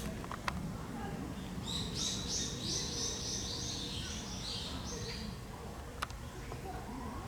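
A small bird singing a quick run of short, high notes for about three and a half seconds, starting about two seconds in, over a steady low background rumble. A sharp click comes near the start and another near the end.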